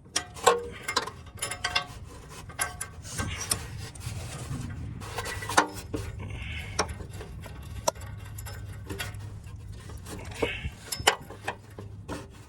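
Irregular light metallic clicks and clinks of a new oxygen sensor being threaded by hand into the exhaust pipe, with the sensor and its wiring knocking against the metal under the car. A low steady hum runs underneath.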